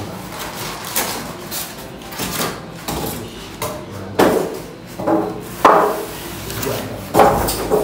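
Handling noise from unpacking a plastic-wrapped 1:10 RC crawler: knocks and rustles as its foam packing insert is taken away and the car bumps and scrapes on a cardboard-covered table. There are several sharper knocks in the second half.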